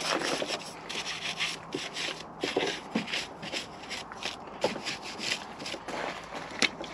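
A brush scrubbing the surfaces of a car's engine bay in quick, repeated strokes, about two to three a second, with a few brief knocks in between.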